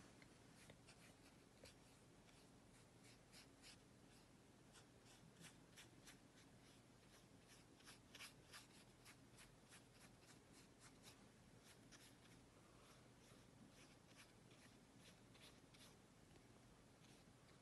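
Faint, irregular little taps and scratches of a watercolour brush working on paper, over a low steady room hum.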